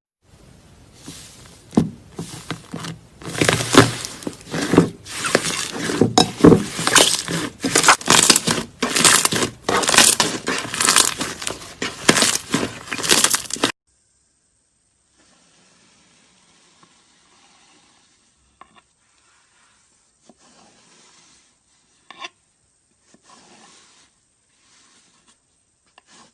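Slime being squeezed and worked by hand, giving loud, irregular crackling and popping. About fourteen seconds in it cuts off abruptly to much quieter, sparse handling sounds.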